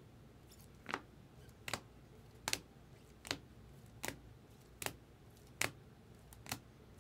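Rigid plastic top loaders holding trading cards clicking against one another as the cards are flipped through one at a time: eight sharp clicks, a little under one a second, starting about a second in.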